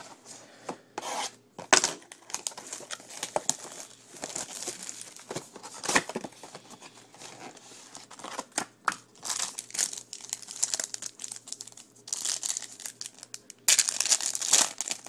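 Wrapping on a box of 2011 Donruss Elite trading cards being torn open and crinkled by hand: a run of crackling rustles and tears, with a louder burst of crinkling near the end.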